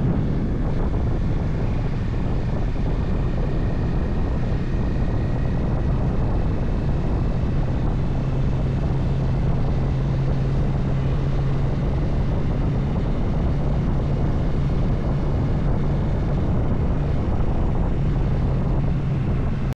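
Bajaj Dominar 400 motorcycle engine running at a steady cruise: a constant low drone with wind noise over it.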